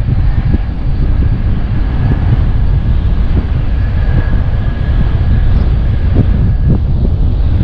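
Wind buffeting the microphone: a loud, heavy low rumble that gusts unevenly, with a faint steady high whine through most of it that stops near the end.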